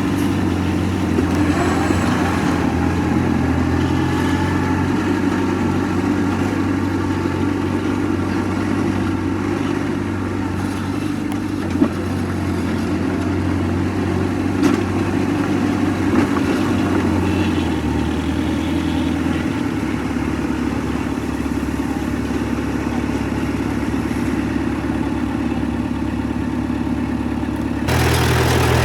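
Diesel engine of heavy earthmoving machinery running steadily, its pitch dropping about two-thirds of the way through, with a few short knocks.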